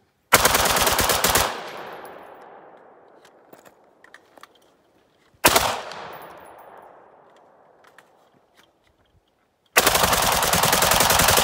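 AR-15 rifle bump-fired with a bump stock, giving machine-gun-like bursts of rapid shots: a burst of a little over a second, a short burst of a few shots about five seconds in, and a longer burst starting near the end. The first two bursts each leave a long echo dying away over a few seconds.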